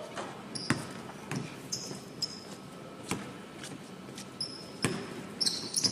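Basketballs bouncing on a hardwood court during a team drill: a scattering of irregular thuds, with a few short, high shoe squeaks on the floor.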